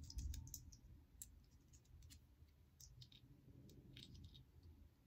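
Faint, scattered clicks and light scratching from small items being handled by hand, with a soft bump just after the start.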